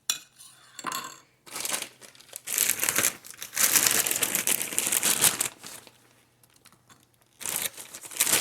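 Plastic bag of marshmallows crinkling as it is handled: a short rustle about a second in, a long stretch of crinkling lasting about four seconds, then more crinkling near the end.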